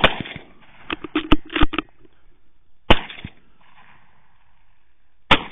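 Bolt-action rifle shots: a sharp shot at the start, a quick run of clicks about a second later as the bolt is worked, a second shot about three seconds in, and a third near the end.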